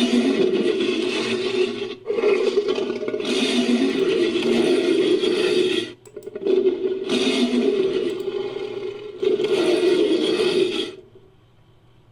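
Made-up monster creature vocalisations built from mixed animal and movie-monster roar samples: a run of long, rough roars, one after another with short breaks, then a pause near the end.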